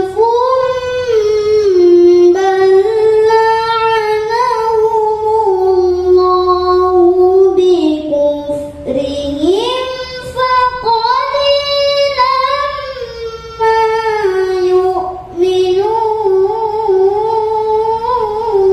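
A young girl reciting the Qur'an in melodic tilawah style in maqam Hijaz, through a microphone. She draws out long phrases of held, ornamented notes, pausing briefly for breath about nine seconds in and again about fifteen seconds in; after the first pause her voice climbs higher.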